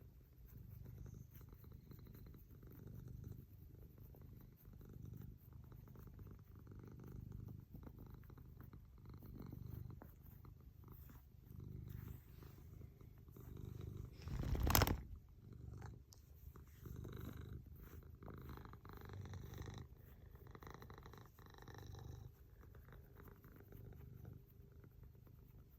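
Domestic cat purring steadily while being brushed, the purr swelling and easing every couple of seconds. A single loud bump cuts in about fifteen seconds in.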